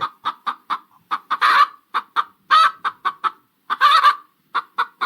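Chicken clucking: a quick run of short clucks broken by a few longer calls.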